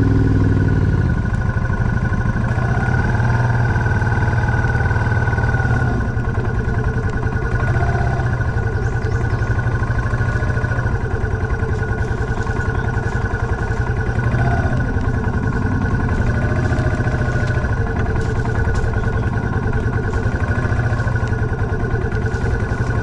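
Dual-sport motorcycle engine running steadily while riding a dirt trail, its rapid firing pulses continuous with small shifts in revs.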